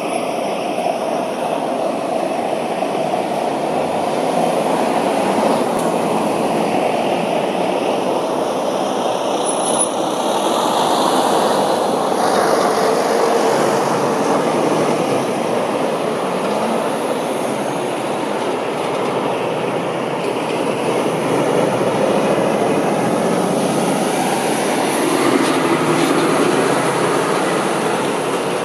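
Road traffic on a busy street: a steady rumble of car engines and tyres from queued and passing vehicles. A refuse lorry drives past close by near the end.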